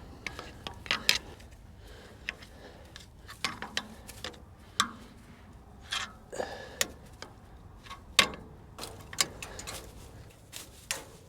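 Irregular clicks, snaps and knocks of twigs and bird-nesting material being pulled and knocked off a tractor roof.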